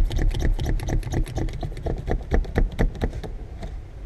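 Ratcheting hand winder of an auto-glass cord-cutting tool being cranked, pulling the cutting cord through the urethane that holds the back glass: rapid clicking at about ten clicks a second that stops a little over three seconds in.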